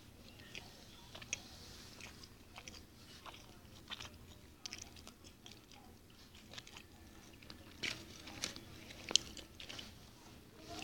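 A person chewing a mouthful of sandwich close to the microphone, with scattered small clicks and crackles.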